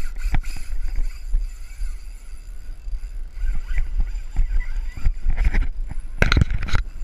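Wind buffeting the microphone in a steady low rumble, with irregular scuffs and knocks from someone moving on a gravel bank while handling a fishing rod; a louder burst of scuffing knocks comes near the end.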